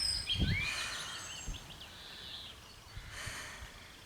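Songbirds chirping and singing in short, quick phrases during the first couple of seconds, then fading. Two brief rushing noises, about half a second in and about three seconds in.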